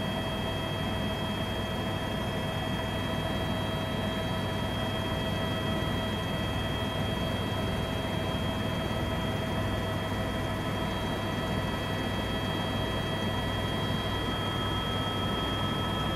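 Eurocopter EC130 helicopter in flight, heard from inside the cabin. A steady turbine whine of several held high tones sits over a low, evenly pulsing rotor drone and a constant rush of noise. One more high tone joins near the end.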